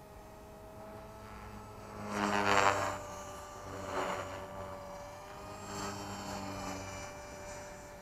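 Electric 450-size RC helicopter flying overhead: a steady whine of motor and rotor with a slightly wavering pitch. It swells louder with a rushing sound about two seconds in, and again around four and six seconds.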